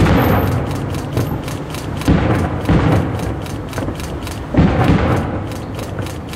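Aerial fireworks shells bursting in a rapid series of booms, each fading with a long rolling echo, with crackling between them.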